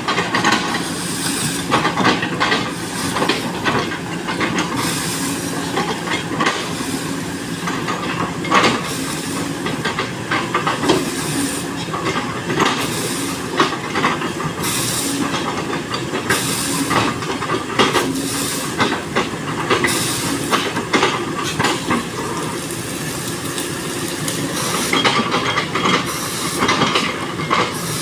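SANY 215C excavator running under load while its bucket chops into a felled oil palm trunk, with frequent irregular knocks and cracks of wood breaking over the steady machine noise.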